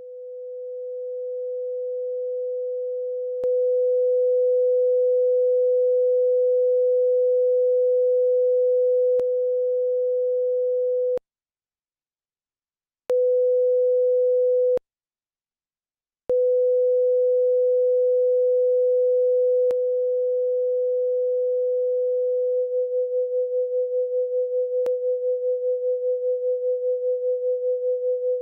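Steady 500 Hz sine tone from the BeeOne software tone generator. It fades in over the first couple of seconds and cuts out twice, about 11 and 15 seconds in, with faint clicks where settings change. Near the end it starts to throb rapidly, several beats a second.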